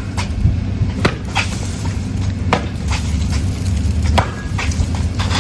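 A snowman of packed snow being knocked apart: scattered crunches and thumps, several a second at irregular spacing, over a steady low rumble.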